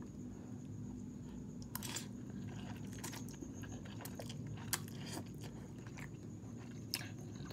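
A person eating hot, soupy instant ramen noodles: slurping them off a fork and chewing, with scattered short wet mouth noises over a steady low hum.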